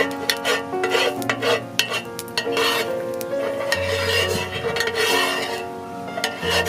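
Metal spoon stirring through hot oil in an enamel pot, clinking and scraping against the pot again and again, with light sizzling. Background music with held notes and a steady low bass runs underneath.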